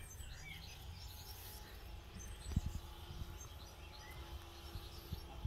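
Quiet garden ambience: faint scattered bird chirps over a low background rumble, with one soft knock about two and a half seconds in.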